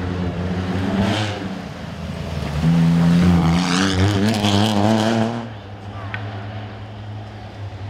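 Dacia Sandero rally car's 0.9 TCe three-cylinder turbo engine revving as the car pulls away. It is loudest from about three to five and a half seconds in, then drops to a lower steady engine note.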